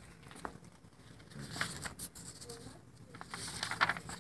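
Handling noise as a painted canvas and a paper print are moved about: soft rustling with a few light taps and knocks, loudest near the end.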